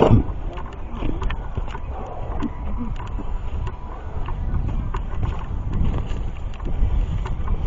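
Low rumble of wind buffeting the microphone while walking on a trail, with scattered footsteps and small clicks.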